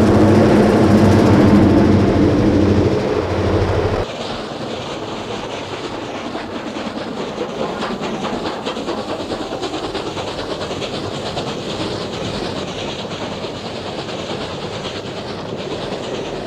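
Diesel-led passenger train passing close, its locomotive's steady drone loud. About four seconds in it drops to the quieter clickety-clack of the passenger cars' wheels over rail joints.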